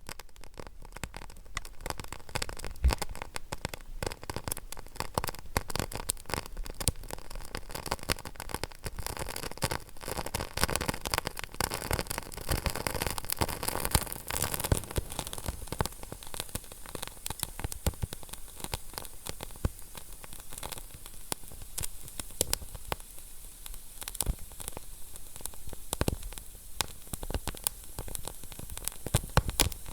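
Wood fire burning in a fireplace: dense, irregular crackling and popping over a steady soft hiss.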